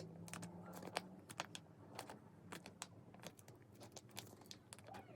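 Faint, irregular small clicks and taps, several a second, like small objects being handled close to the microphone, over a low steady hum.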